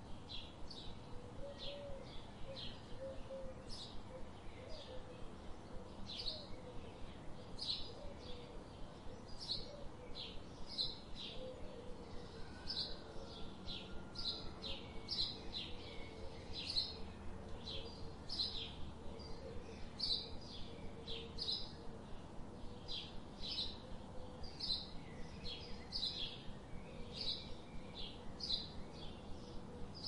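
A small bird chirping over and over, short high chirps coming more than once a second, with a faint low warbling sound underneath.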